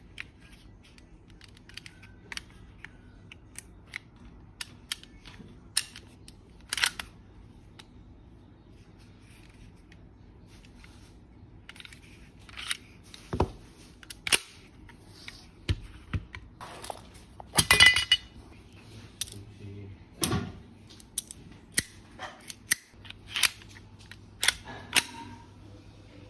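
Toy Walther PPK pistol being handled, its mechanism working with a series of sharp separate clicks and clacks, more frequent and louder in the second half, with the loudest cluster about 18 seconds in.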